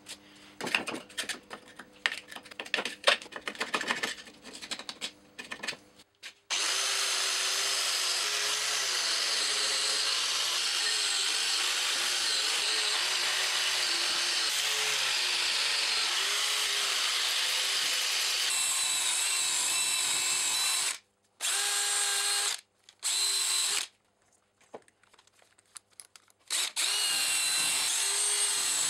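Hand wire brush scrubbing the rusty vise body in quick scratchy strokes. Then, from about six seconds in, an electric angle grinder runs steadily against the metal until about 21 seconds. Near the end, after a few short bursts and pauses, a cordless drill spins a wire wheel inside the bore.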